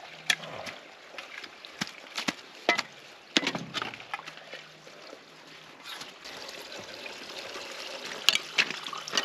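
Shovels digging into wet, silted-up ditch soil: a string of sharp chops and scrapes, over a faint trickle of muddy water.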